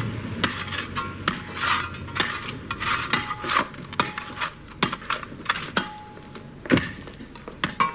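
A run of irregular sharp clicks and clatters, about three a second, like small hard objects knocking together, with one louder knock near the end.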